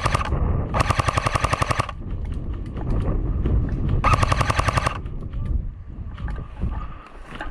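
Airsoft gun firing full-auto: three bursts of rapid, evenly spaced shots, each about a second long, the first ending just after the start and the last about four seconds in.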